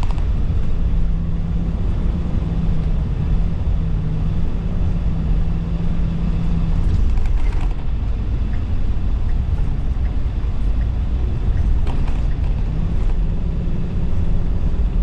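A vehicle running with a steady low rumble, its hum holding one pitch until about seven seconds in.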